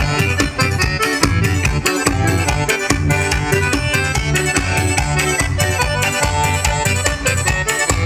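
Forró pé de serra music, an accordion leading over a quick, steady beat.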